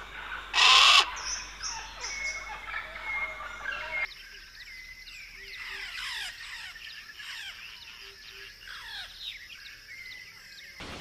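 Birds calling: one loud, harsh call about a second in, then lighter chirps. About four seconds in the sound changes to a dense chorus of many birds giving quick falling whistles. Near the end it is replaced by a steady hiss.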